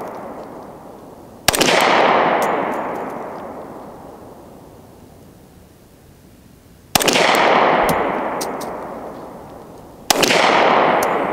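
Three pistol shots from a Glock 20 in 10mm, fired with hand-loaded 175-grain Lee cast-lead semi-wadcutter bullets lubricated with Lee Liquid Alox, through an Alpha Wolf barrel. The shots come about a second and a half in, about seven seconds in and about ten seconds in, a nice little pop each. Each one is followed by a long echo that fades over a few seconds.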